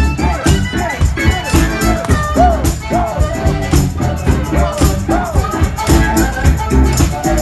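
Live blues-rock band music led by an amplified harmonica played through a handheld mic, its notes bending up and down, over a steady drum beat.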